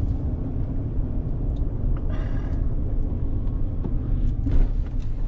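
Steady low rumble of a roll-off truck's engine and road noise heard from inside the cab while driving, with a short hiss about two seconds in.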